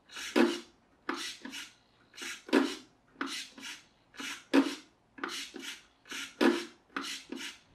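Small 9-gram RC servo whirring in short bursts as it swings the boat's rudder back and forth, the whirs coming in pairs about once a second. The servo moves cleanly, without the jittery overcorrecting seen with the other servo.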